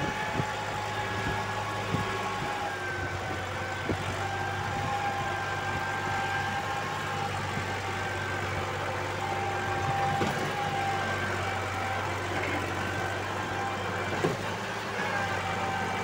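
Massey Ferguson tractor's diesel engine running steadily under load as it pulls a heavily loaded trolley through soft sand, with a steady whine above the engine note and a few sharp knocks.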